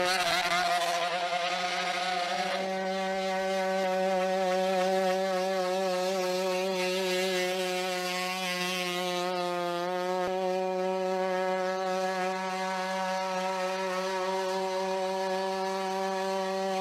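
Boston Dynamics WildCat quadruped robot's onboard engine running at a steady high speed: a loud, even buzz that wavers slightly in pitch in the first few seconds.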